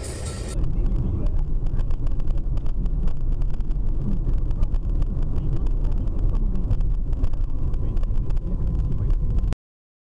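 Steady low rumble of a car driving, engine and road noise, with no impact heard; it cuts off abruptly to dead silence near the end.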